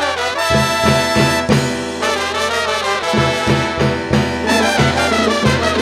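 Live salsa band playing at full volume, led by a brass section of trumpets and trombones over bass and Latin percussion: the opening bars of a new number.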